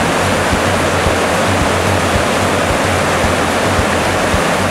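Whitewater rapid rushing over boulders: a loud, steady roar of churning river water.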